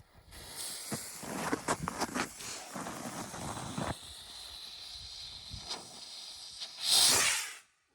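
Firework rocket hissing, with crackles at first, then a louder hissing whoosh about seven seconds in that cuts off abruptly.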